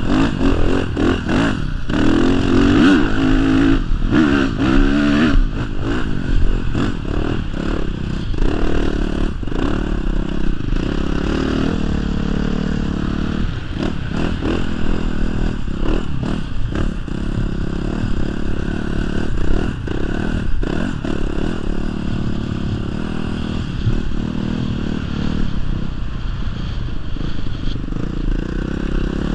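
Honda CRF450 dirt bike's single-cylinder four-stroke engine being ridden hard, its revs rising and falling repeatedly as the throttle is worked. The revving is busiest in the first few seconds, then settles into a steadier run.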